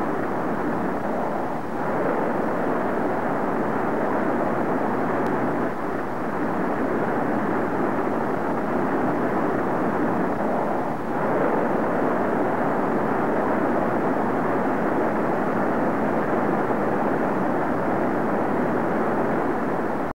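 Steady, dull rushing jet-aircraft noise with no distinct engine tone, cut off above the mid range as on an old recording. The level rises slightly about two seconds and eleven seconds in.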